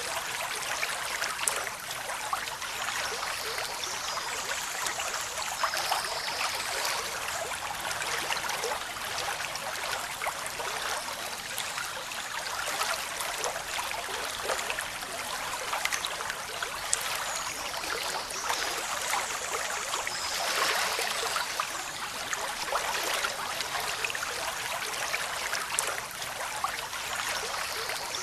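A small waterfall: water falling and splashing in a steady, even rush, bright and hissy with many small splashes and little deep rumble.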